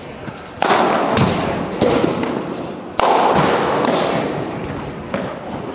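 Padel rally: about five sharp pops of the ball off solid padel rackets, the court and the glass walls, each echoing through a large hall.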